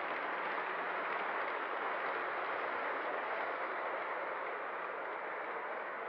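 O scale model train rolling along three-rail track, heard from a camera riding on the train: a steady rolling noise of wheels and motor, easing off slightly near the end.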